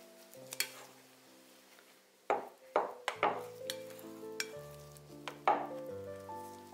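A spatula stirs and scrapes crumbly steamed rice-flour dough against a glass bowl in a series of strokes. The loudest scrapes come in a cluster a little past the middle and once more near the end, over soft background music.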